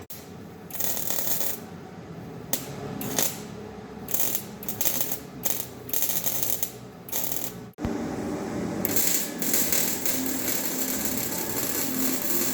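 Ratchet wrench clicking in short, irregular bursts while bolts on a muffler hanger are tightened. After a cut, a steadier hissing workshop noise takes over.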